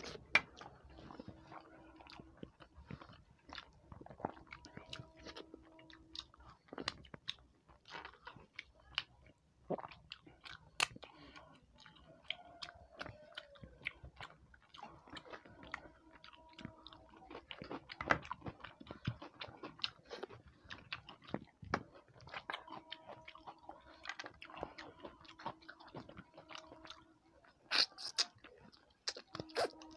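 Close-up chewing and mouth sounds of a person eating rice and fish curry by hand: wet smacks and clicks throughout, with a few louder ones near the end.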